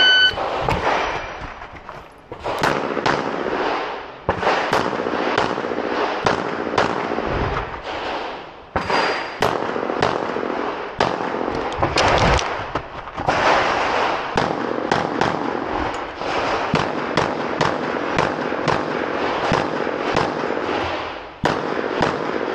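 A shot timer beeps once, then a semi-automatic pistol fires dozens of shots in quick strings of several, with short pauses between strings.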